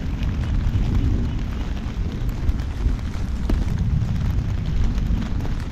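Heavy rain and wind buffeting the microphone: a steady low rumble with scattered light taps.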